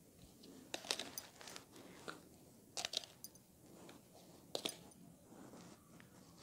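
Spoon scraping and scooping powdered sugar into a plastic measuring cup: a few short, crunchy scrapes.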